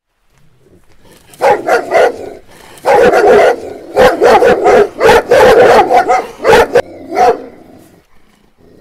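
Dog barking over and over in rapid bursts, starting about a second in and stopping shortly before the end.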